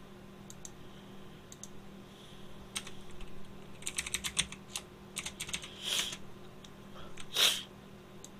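Computer keyboard keys being typed, a few single taps at first, then quick runs of keystrokes around four to six seconds in. Two short hissing rushes of noise come about six and seven and a half seconds in, the second the loudest sound here.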